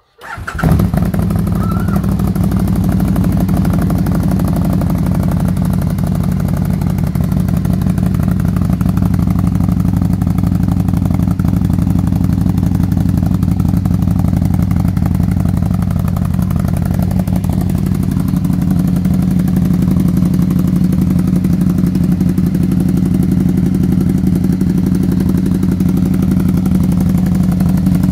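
Can-Am Spyder GS's Rotax V-twin engine starting about half a second in and then idling steadily, heard through a Dominator R aftermarket exhaust with its dB killer baffle fitted.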